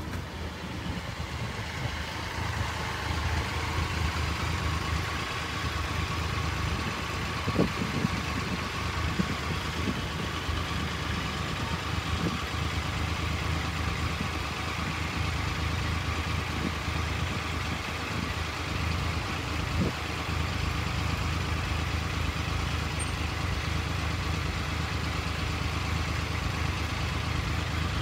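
A steady low engine rumble with a few short knocks.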